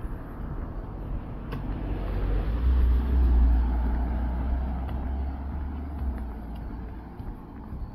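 A road vehicle driving past: low engine rumble and tyre noise that swell to a peak about three seconds in, then slowly fade.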